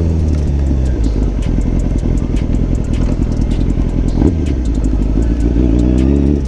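Motorcycle engine running at low revs, its note settling low and steady, then rising near the end as it pulls away. Scattered sharp ticks throughout.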